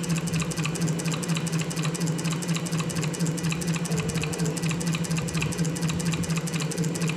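A steady low machine hum with light regular ticks, about three a second.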